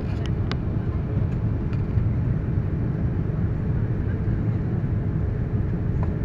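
Cabin noise inside a Boeing 787-9 descending on approach: a steady low rumble of the GEnx engines and the airflow over the fuselage. A few faint clicks from the cabin come through in the first two seconds.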